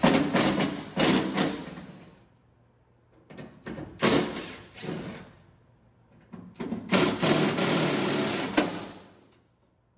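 Cordless impact driver hammering out the window-regulator mounting bolts from a steel Scout II door, in three bursts of a few seconds each.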